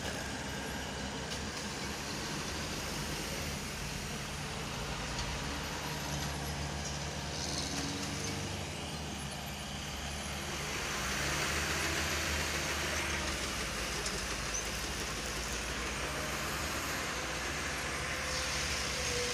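Heavy diesel engine running steadily while a dump truck tips its load of earth. About ten seconds in the sound changes to a Komatsu crawler bulldozer's diesel engine working the fill, a little louder and with more hiss.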